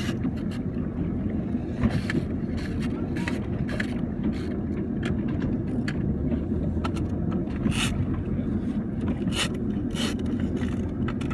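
Motorboat engine running as a steady low rumble, with fingers rubbing and tapping on the phone close to its microphone, giving frequent short clicks and scrapes.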